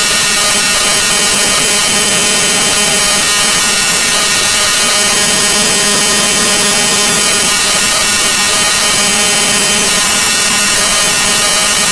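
Loud, harsh, steady drone of many stacked pitches: a sound effect pitch-shifted and layered into a chord.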